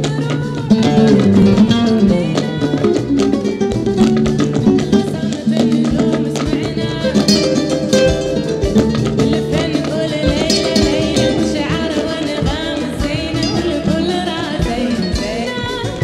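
Flamenco fusion music with plucked guitar and steady sustained bass notes; a high melody that bends and wavers in pitch comes in about halfway through.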